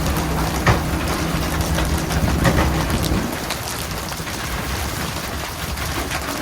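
Dense, steady splashing and spraying of water with a few sharp knocks, over a low mechanical hum, likely the boat's engine, that stops about three seconds in.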